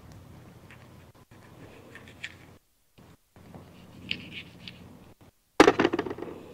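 Quiet scraping and cutting as a sweet pepper is halved with a knife and its seeds are scraped out, then a louder, clattery burst of handling noise for about a second near the end.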